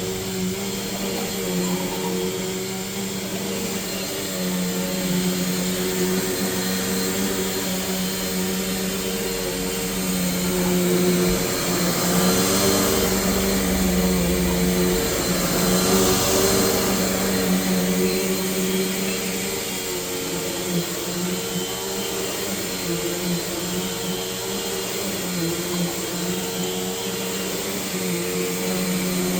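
A 2008 Bissell PowerForce Bagless 6582 upright vacuum cleaner running steadily, its motor hum wavering in pitch as it is pushed back and forth. Its hiss swells louder for a few seconds around the middle.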